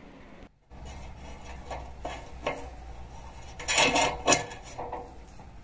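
Light clicks and rattles of tomato trellis hooks and strings being handled as the vines are lowered, with a louder flurry of clatter about four seconds in, over a steady low hum.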